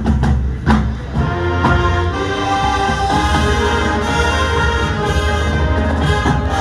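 High school marching band playing: a few sharp percussion hits in the first two seconds, then the brass section holds full, sustained chords.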